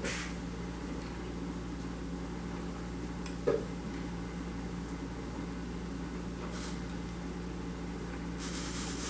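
Steady low background hum with faint handling rustles: a brush working paint on a plastic palette and a painted glass bottle being turned on a paper towel. A small click about three and a half seconds in.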